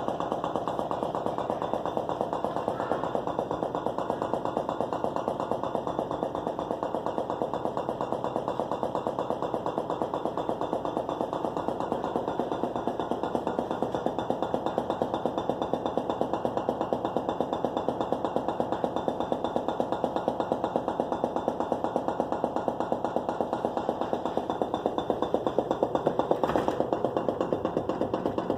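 Whirlpool Gold refrigerator making a fast, steady, even knocking. The owner does not know the cause; the knocking comes and goes on its own and stops when the doors are slammed.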